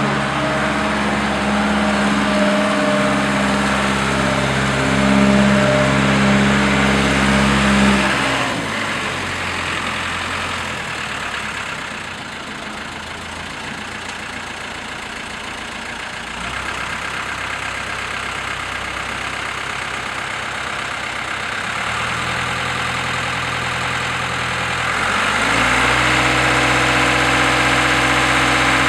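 Diesel engine of a DIECI L3500 self-loading concrete mixer running steadily at raised speed. About 8 seconds in it drops back to a lower idle, and near the end it speeds up again.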